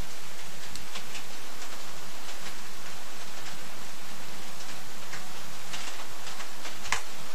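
Rain falling steadily, with irregular sharp ticks of drops striking close by; the loudest tick comes near the end.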